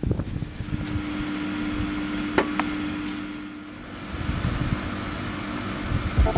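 Steady low electrical hum from a parked, lit electric passenger train over a background hiss, with one sharp click about two and a half seconds in.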